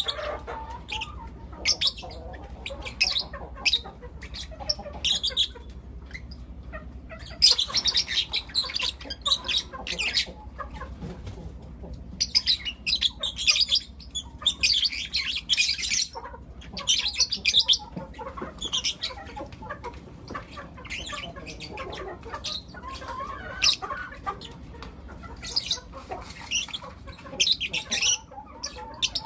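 Young lutino lovebirds chirping: quick clusters of short, high calls all through, with brief pauses between bursts. A steady low hum runs underneath.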